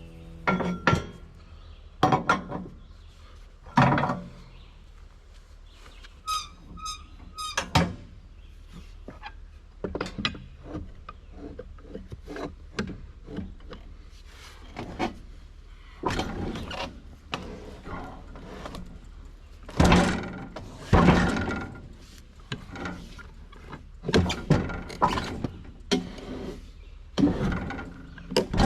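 Irregular thunks and knocks of wood being handled on a sawmill between cuts, with the loudest pair of thuds about two-thirds of the way through, and a brief run of squeaks early on.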